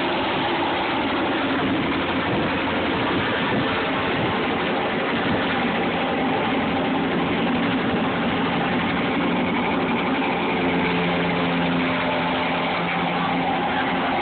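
Sheriff's turbine helicopter running at take-off power, its engine whine and rotor noise a loud, steady wash as it lifts off and moves away low across the field.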